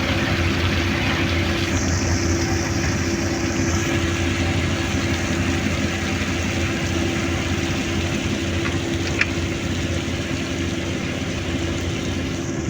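Construction machine's engine idling steadily, with a brief higher hiss about two seconds in and a single sharp click later on.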